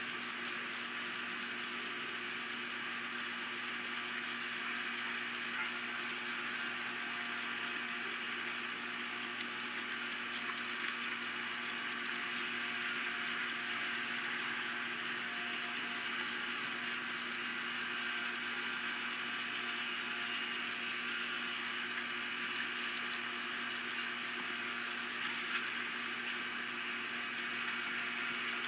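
Steady outdoor hiss of background noise with a few faint constant hum tones; no distinct bird calls stand out.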